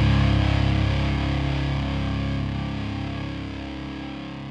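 Rock music: a distorted electric guitar chord ringing out and slowly fading.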